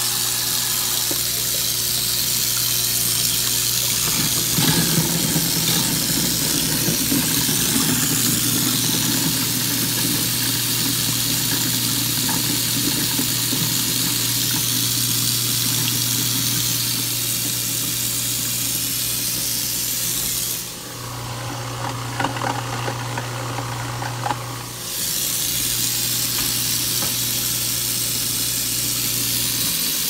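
InSinkErator garbage disposal running and grinding orange peels with the tap running: a steady motor hum under the rush of water, rougher for several seconds early on as the peels go down. For about four seconds in the last third the water noise drops out and the motor hum is heard on its own, slightly higher.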